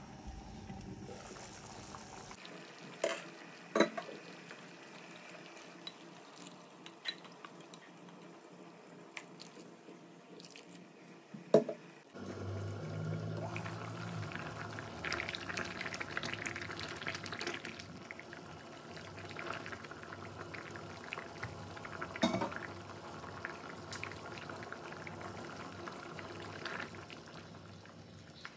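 Pot of mung bean porridge bubbling on the hob, with a few sharp clinks against the pot. The bubbling grows louder and busier about twelve seconds in, once the pot is uncovered.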